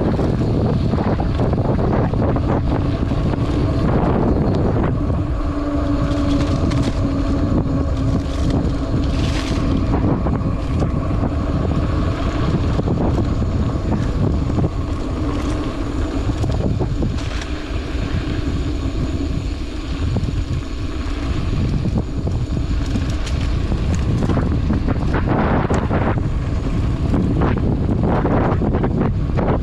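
Wind buffeting the microphone of a camera on a mountain bike, together with the steady rumble of tyres rolling over a dirt trail. A steady buzzing hum joins in for several seconds near the middle.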